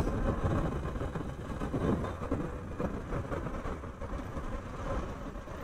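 Motorcycle being ridden at about 40 km/h: a steady low rumble of engine and road noise.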